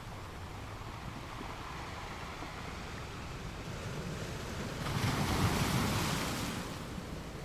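Sea waves washing ashore: a steady hiss of surf, with one wave swelling and breaking about five seconds in, then drawing back.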